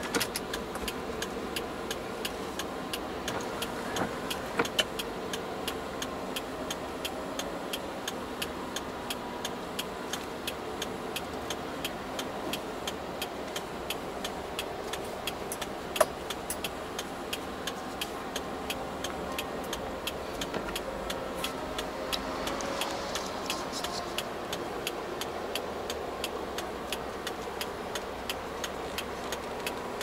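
Steady road and engine noise heard from inside a moving car's cabin, with a light, even ticking throughout and one sharp click about halfway through.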